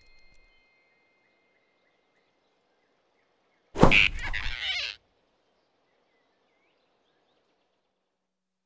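A cartoon sound effect about four seconds in: a sudden whoosh-like sweep that lasts about a second and cuts off sharply, as the animated rabbit snatches the flying squirrel. Before and after it there is near silence.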